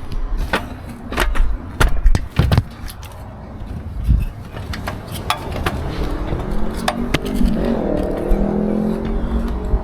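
Several sharp clicks and knocks over a low rumble, then a vehicle engine running, its pitch rising about three-quarters of the way in and then holding steady.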